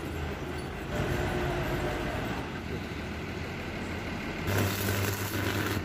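A vehicle engine running steadily with a low hum, getting louder for about a second near the end.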